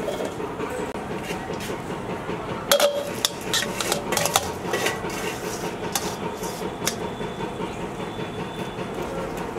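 Chopped herbs being scraped off a wooden board and tossed by hand in a stainless-steel pot: rustling, with a run of sharp metallic clinks against the pot from about three to seven seconds in.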